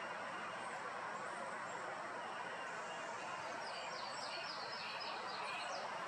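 Steady outdoor background noise with small birds chirping faintly, starting a couple of seconds in, with a quick run of short high notes in the second half.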